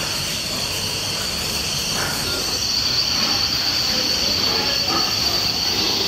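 Pig-barn ambience: a steady high-pitched whine over a constant hiss, the whine growing stronger a couple of seconds in, with scattered faint short sounds underneath.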